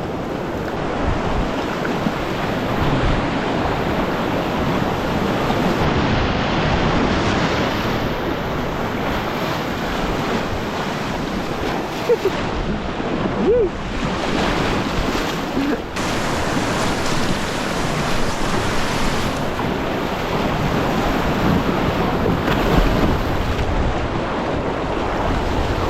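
River whitewater rushing steadily as a small inflatable boat runs the rapids.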